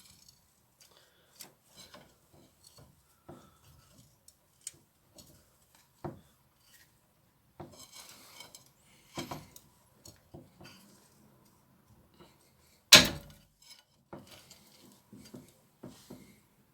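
Scattered metal clinks, scrapes and knocks of a pry bar and hand tools working on a car's front brake caliper, with one sharp, much louder knock about thirteen seconds in.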